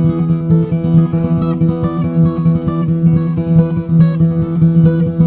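Instrumental music on a bowl-backed, long-necked plucked string instrument, picked rapidly over a steady ringing low note.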